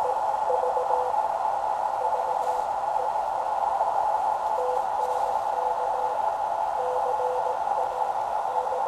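Shortwave receiver hiss heard through a narrow audio filter, with a weak Morse code (CW) tone keying in and out underneath: a faint signal from a distant station being copied by ear.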